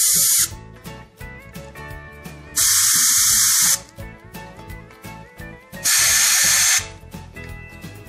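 Short, loud hissing blasts of pressurized spray through a thin nozzle tube into the fuel passages of a Carter carburetor body, blown backwards against the fuel flow to clear out plugged jets. One blast cuts off about half a second in, and two more of about a second each follow, with quiet background music between them.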